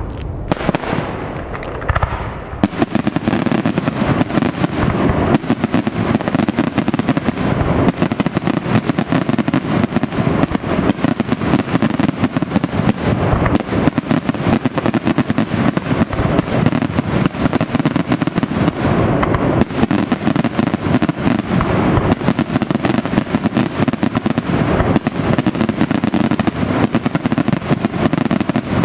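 Daytime fireworks: a dense, unbroken barrage of rapid bangs and crackles from shells bursting overhead, thickening about two and a half seconds in.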